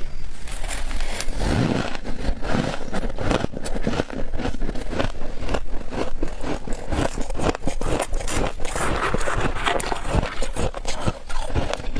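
Thick humidifier frost being dug and scraped out: a dense, continuous run of crunching, crackling scrapes.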